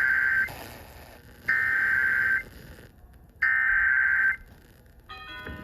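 Emergency Alert System SAME header: three bursts of shrill digital data warble, each just under a second long with about a second between them, the coded start of a new alert. About five seconds in, a steady alert tone begins.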